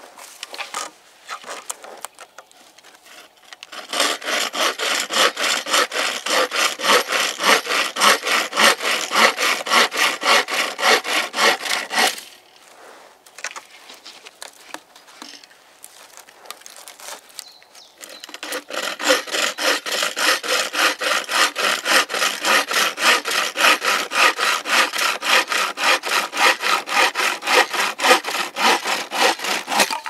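Homemade wooden frame saw cutting through a branch with quick, even back-and-forth strokes. It saws in two bouts: one from about four to twelve seconds in, then, after a pause, a longer one starting about eighteen seconds in.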